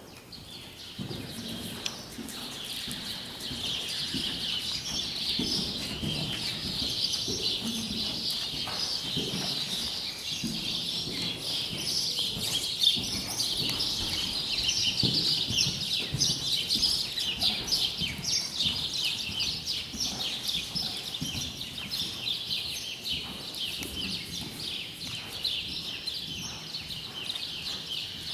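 Many small birds chirping at once, a dense, continuous chatter of overlapping chirps that starts about a second in, with the hoofbeats of a ridden horse underneath.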